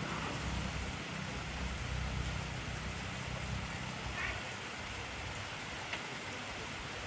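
Heavy rain falling in a steady hiss, with a low rumble underneath that fades out about four seconds in, and a few faint drop ticks after it.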